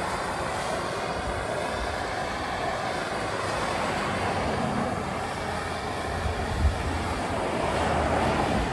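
Steady rushing roar of a handheld propane torch burning roots out of an asphalt crack, mixed with traffic noise from a busy road. A short low thump comes about two-thirds of the way through.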